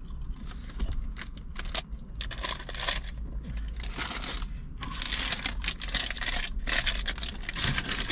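Close-up chewing of crispy fast food dipped in honey mustard: irregular crunching and wet mouth clicks, sparse at first and thicker from a few seconds in.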